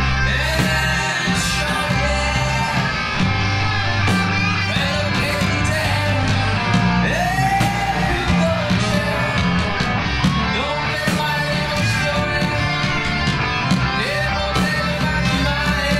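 Rock band music: electric guitars, bass guitar and drums playing a steady groove, with a bending melodic line above it.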